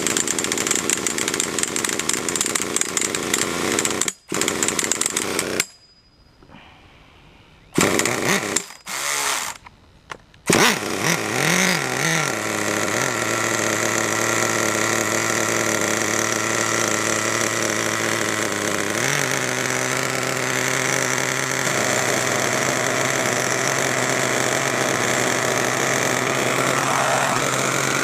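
Small two-stroke nitro (glow) engine of a HotBodies Lightning GTX2 RC truck: it runs loudly, cuts out about four to six seconds in, then after a few short sputtering bursts catches about ten seconds in and settles into a steady idle, its pitch stepping up slightly near the middle.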